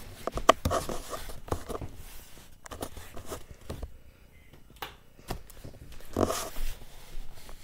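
Irregular footsteps, knocks and thumps with rustling from the camera being carried close, as someone climbs the stairs.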